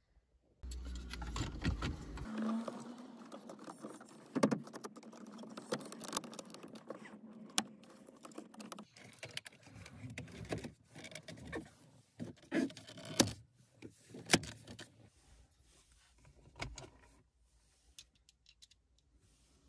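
Plastic dashboard trim being handled and pressed into place around a car head unit: rustling with a series of sharp plastic clicks and knocks, the loudest about two-thirds of the way through.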